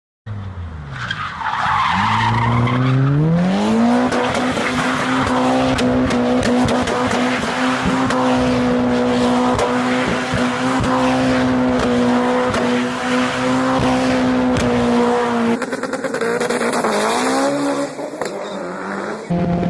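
A car engine revs up over about two seconds, is held at high revs for around twelve seconds, then drops and climbs again near the end before cutting off abruptly.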